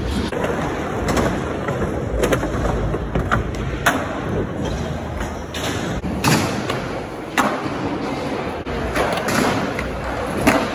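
Skateboard wheels rumbling steadily over a concrete floor, broken by sharp wooden clacks and thuds of boards popping and landing every second or two.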